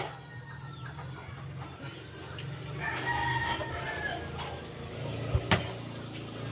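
A rooster crowing once, a call of a little over a second that falls in pitch at the end, about three seconds in, over a low steady hum. Two sharp knocks sound close together near the end.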